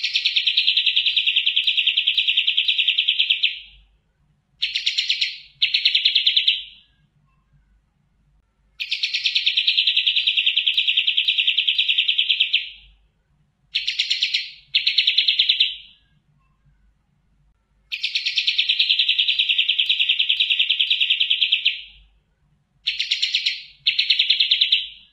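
Kapas tembak (olive-winged bulbul) singing a loud, clear, rapid-fire song. Each phrase is a fast pulsed trill of about four seconds followed by two short bursts, and the phrase comes three times, about every nine seconds.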